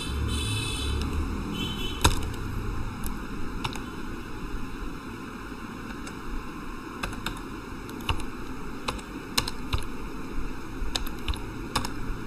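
Computer keyboard keys pressed one at a time while a password is typed: about a dozen separate clicks at an uneven pace over a steady background hiss, with a brief low rumble in the first second and a half.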